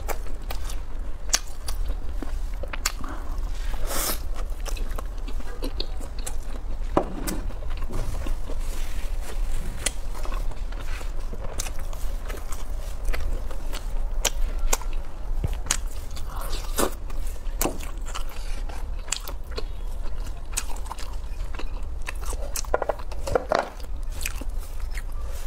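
Close-miked biting and chewing of a pan-fried vegetable pocket pie, with many short crisp crackles from the crust.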